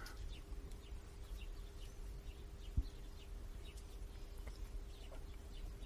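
Faint background room noise: a steady low hum with a thin steady tone, scattered faint short high chirps, and one dull low thump nearly three seconds in.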